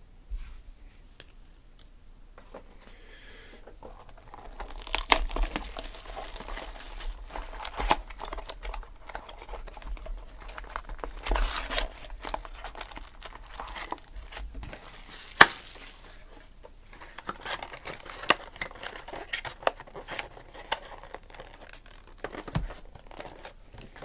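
A box of trading-card packs being opened: wrapping and foil pack wrappers crinkling and tearing, with sharp snaps and taps. Busiest from about four seconds in to about fifteen, then sparser handling noises.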